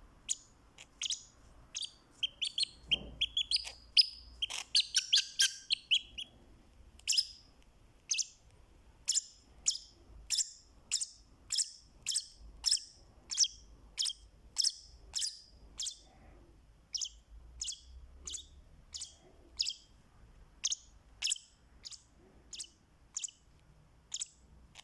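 Fischer's lovebird calling with repeated high-pitched chirps: a quick tangle of chirps a few seconds in, then single sharp chirps at a steady pace of about two a second.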